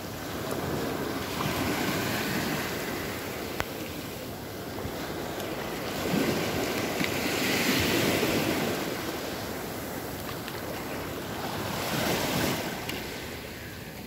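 Sea surf washing in over shallow water on a sandy beach, the rush of water swelling and fading three times, about five seconds apart.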